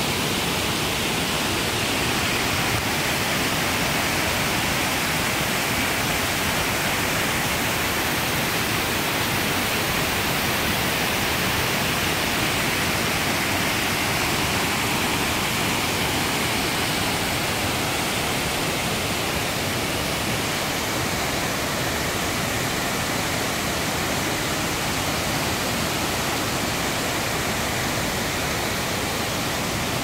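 Waterfall in high flow, muddy water tumbling over rock ledges and churning into the pool below, a steady, loud rushing with no let-up.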